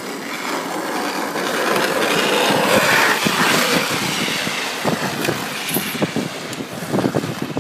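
Longboard's urethane wheels sliding sideways across asphalt, with the rider's gloved hand scraping the road: a rough, rising hiss loudest about three seconds in, followed by a run of short knocks and scrapes near the end.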